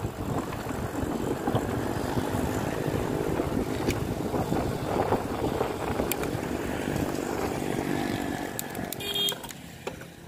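Small motorcycle engine running close by on the road, its note wavering, over wind rumbling on the microphone. A brief high squeal comes about nine seconds in, after which the engine sound drops away sharply.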